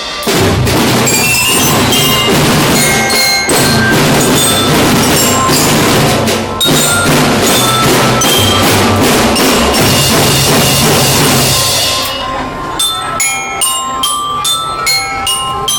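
Children's marching drum band playing, drums with bellyra (marching glockenspiel) tones over them; about twelve seconds in the drums stop and the bellyra plays on alone in single ringing notes.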